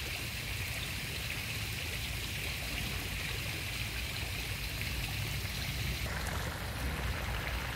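Steady rushing and splashing of water from park fountains.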